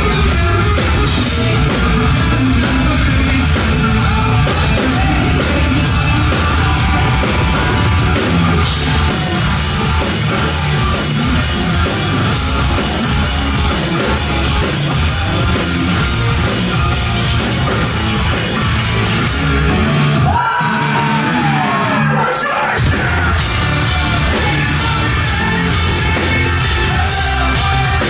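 Rock band playing loud heavy rock live, with yelled and sung vocals over guitars and drums. About twenty seconds in, the low end drops out for a couple of seconds, leaving a single gliding note, before the full band comes back in.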